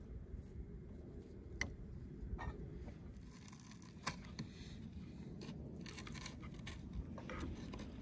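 Eating sounds: flatbread torn by hand and a metal fork cutting meat and clicking against a clay plate, with a few sharp separate clicks.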